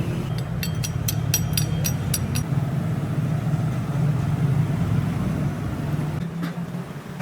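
A motor vehicle engine running steadily amid road-traffic noise, with a quick run of light clicks in the first couple of seconds; it grows quieter near the end.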